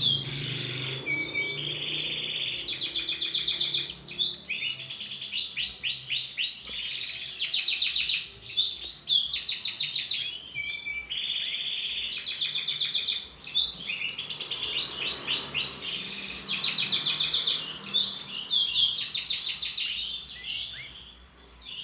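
Domestic canary singing a long, continuous song of rapid high trills and rolls, one phrase after another, fading out near the end.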